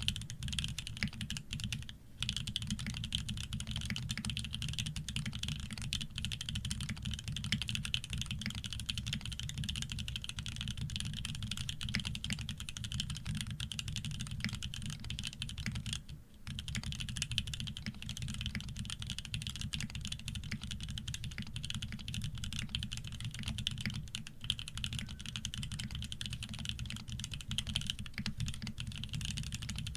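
Continuous fast typing on a Shark60 custom mechanical keyboard with Krytox-lubed OP Black switches, PBT keycaps and an aluminium plate. The keystrokes run thick and even, with brief pauses about 2 seconds in and again about 16 seconds in.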